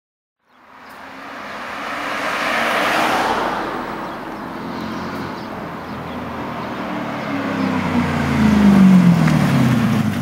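Lexus SC400's V8 engine and exhaust running under throttle: a broad noise swells to a peak about three seconds in, then the deep engine note builds to its loudest near the end, its pitch easing down.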